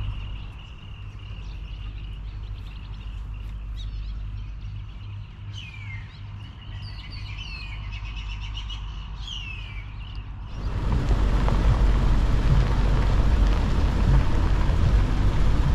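Birds chirping in quick rising and falling calls over a steady high-pitched drone. About two-thirds of the way in, a louder, steady rushing noise with a deep low rumble suddenly takes over.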